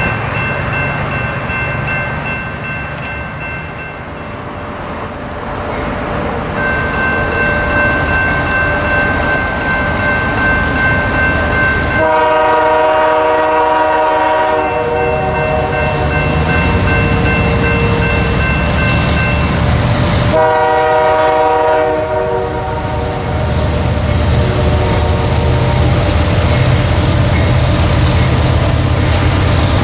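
Grade-crossing warning bell ringing while an approaching Norfolk Southern freight, led by a GE C40-9W diesel locomotive, sounds its multi-note air horn in long blasts, the loudest about twelve and twenty seconds in. The locomotives' diesel engines and the wheels on the rail rumble louder near the end as the train draws close.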